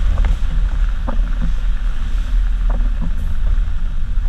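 City bus running along a rain-soaked road, heard from inside: a loud, steady low engine rumble with tyre and rain noise and scattered short rattles and knocks from the bodywork.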